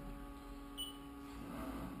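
Steady faint hum of a Haas CNC vertical mill, with a soft whir swelling about one and a half seconds in as the head is hand-jogged, and a short high beep a little under a second in.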